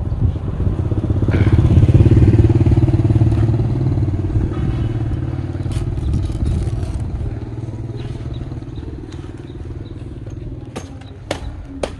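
A motorbike engine running close by, loudest a couple of seconds in and then fading away. A few sharp clicks and knocks come near the end.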